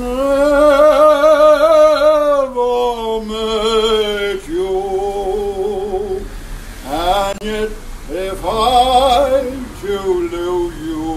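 A man singing unaccompanied, holding long notes with a wide vibrato: one long held note in the first couple of seconds, then shorter sung phrases.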